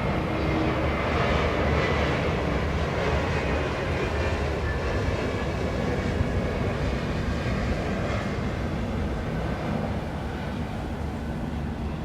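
Downtown city traffic noise: a steady heavy rumble of passing vehicles, easing slightly near the end.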